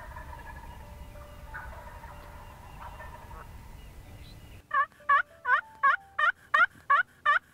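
A hand-operated turkey call yelping like a hen: a loud, regular run of short yelps, about three a second, starting a little over halfway through. Before it, only a faint background with distant bird calls.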